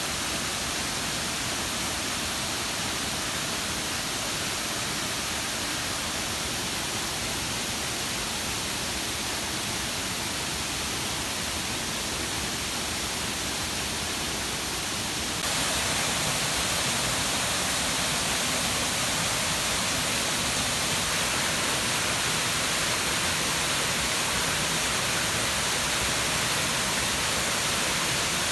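Water of an artificial waterfall falling and splashing, a steady rushing noise; about halfway through it jumps suddenly a little louder and brighter.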